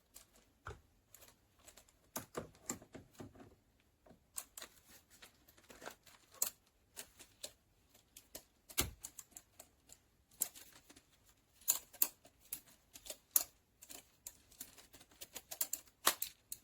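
Irregular clicks and clacks of a metal articulating camera arm and super clamp being handled and adjusted, with no steady rhythm.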